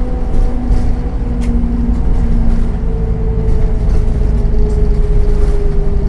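Solaris Urbino 10 II city bus driving, its MAN D0836 six-cylinder diesel engine and ZF 4HP502 automatic gearbox making a steady low rumble. A whine rides on top, shifting in pitch and then falling slowly in the second half.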